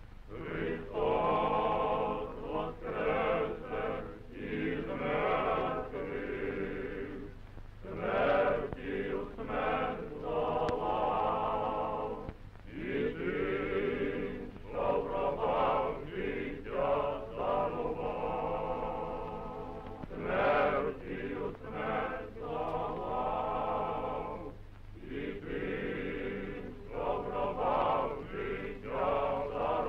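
Church choir singing a slow religious chant, men's voices prominent, in long phrases with short breaks between them. It comes through a narrow, dull-sounding old film soundtrack with a steady low hum under it.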